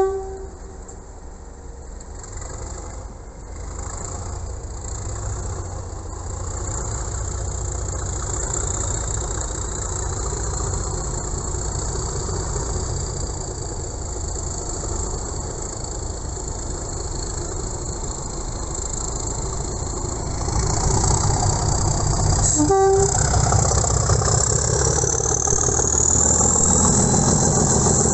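Diesel locomotive approaching through the station, its engine growing louder toward the end, with a short, loud train horn blast at the start and a second short horn toot later. A high whine rises near the end.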